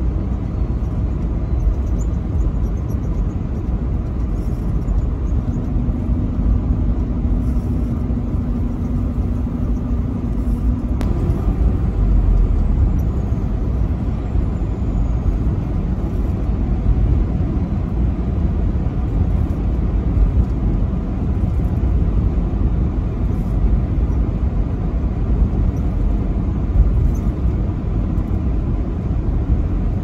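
Steady engine and road rumble inside a truck's cab cruising on the highway. A faint steady hum joins in from about five seconds in and stops about eleven seconds in.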